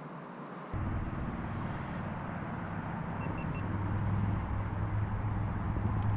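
A low steady engine-like hum over a rumbling background, setting in abruptly under a second in and slowly growing louder.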